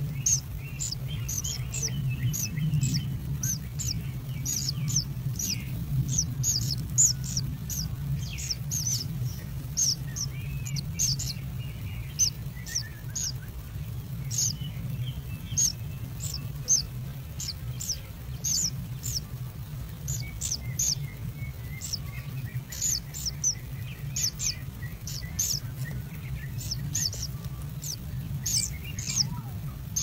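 Kingfisher nestlings chirping: many short, high chirps in quick, irregular succession, over a steady low hum.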